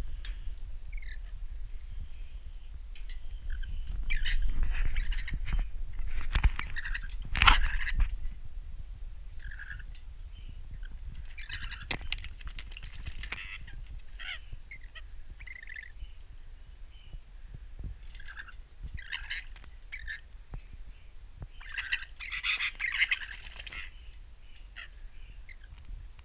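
Rainbow lorikeet bathing in a stainless-steel water bowl: several bouts of splashing, each lasting a second or two, with short chirps from the bird between them.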